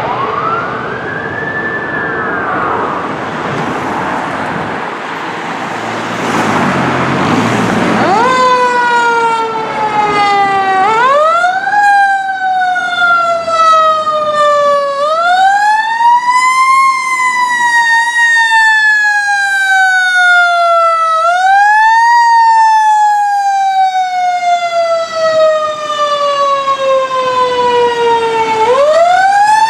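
Fire engine siren wailing, its pitch rising quickly and then falling slowly, over and over about every five seconds. A fainter siren and traffic noise come first, before the loud wail takes over about eight seconds in.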